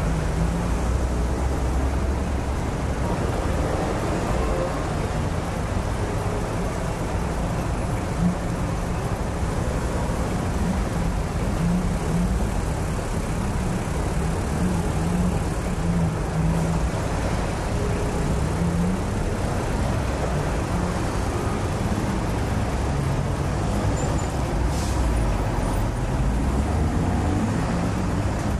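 Traffic jam: the engines of many queued cars and lorries idling and creeping along, a steady low rumble, with one short knock about eight seconds in.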